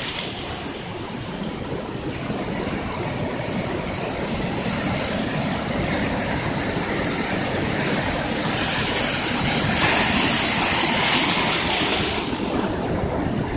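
Heavy surf breaking and washing against a rock jetty, a steady rushing hiss that swells louder about two-thirds of the way in and then eases.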